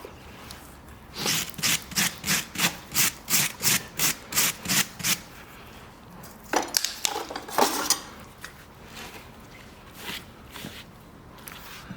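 A farrier's rasp filing a horse's hoof, a run of quick, even strokes at about four a second. A few slower, heavier strokes follow near the middle, then lighter scattered strokes.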